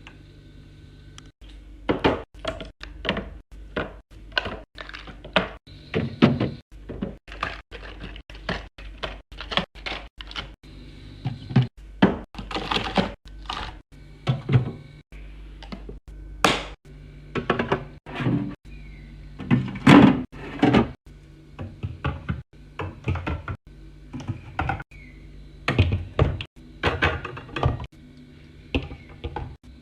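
Items being handled and set down one after another while a mini fridge is stocked: a string of irregular thunks, knocks and clacks, about one or two a second, with a few louder knocks.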